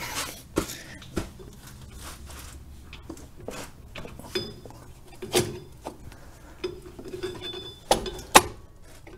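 Metal clinks and clicks of brake shoes, return springs and a screwdriver against the backing plate of a 1979 Camaro's rear drum brake as the bottom spring is worked into place. The clicks come irregularly, with the sharpest ones about eight seconds in.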